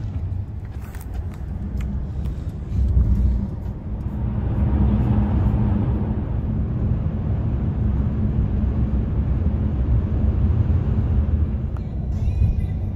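Car cabin noise while driving: a steady low rumble of engine and tyres on the road, with a hiss of road noise that grows louder from about four seconds in as the car picks up speed.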